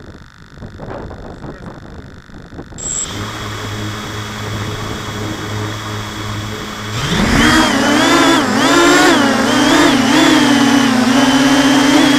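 Electric motors and propellers of a Robocat quadcopter, heard through its own onboard camera. A short high beep comes about three seconds in, followed by a low steady hum. About seven seconds in the motors spin up into a loud buzzing whine that rises and dips with the throttle as it takes off and flies low.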